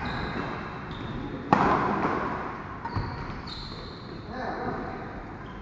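Badminton rally in a large hall: one sharp racket hit on the shuttlecock about a second and a half in, echoing for about a second, then a dull thud a moment later. Faint players' voices near the end.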